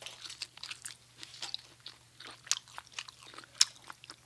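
Close-miked chewing and biting of people eating roast turkey and orange slices: a scatter of short, sharp mouth clicks, one louder click about three and a half seconds in, over a faint steady low hum.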